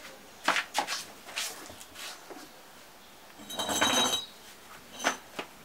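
Metal clinks and knocks of hand tools being handled on the ground, a few separate sharp strikes, and a scraping clatter with a metallic ring lasting under a second about three and a half seconds in.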